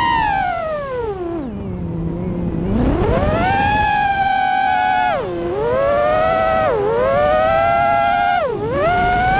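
Small FPV racing quadcopter's electric motors and propellers whining, as picked up by the onboard camera. The pitch sinks deeply and climbs back in the first few seconds, then dips sharply three more times as the throttle is chopped and reapplied.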